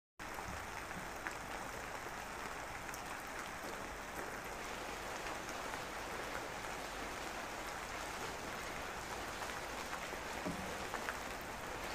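Steady rain falling on wet, muddy ground: an even hiss with scattered faint drop ticks.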